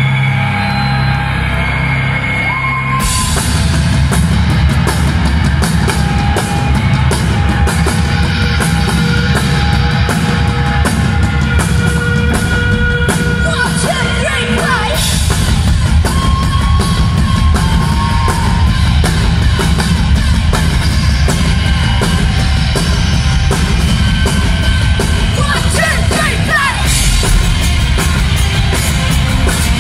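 Live rock band playing loud, with a female singer's vocals over electric guitars and a drum kit; the full band comes in hard about three seconds in, with fast, dense drumming after that.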